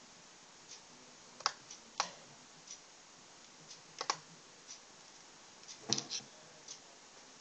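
Sharp clicks from a laptop's touchpad and keys under the hand, a few seconds apart, the loudest cluster near the end. A faint tick about once a second runs underneath.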